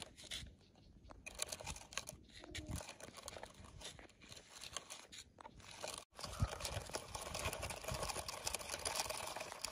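Hard plastic wheels of a toy dump truck rolling over a dry dirt track and dead grass, crunching and crackling unevenly. The sound drops out for an instant about six seconds in, then goes on as a steadier rustle.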